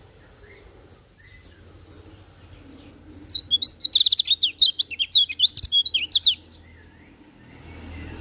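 A kecial kuning white-eye sings a rapid, high twittering phrase of many quick notes lasting about three seconds, starting a few seconds in, after a few faint chirps. A low steady hum runs underneath.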